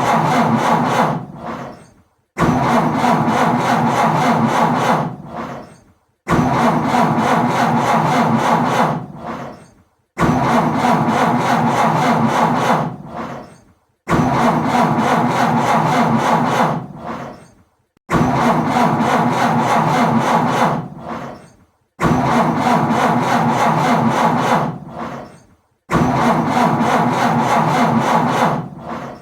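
Car engine being cranked by the starter motor but failing to catch, over and over: each attempt runs about three seconds and then dies away, with a brief pause before the next, about eight times.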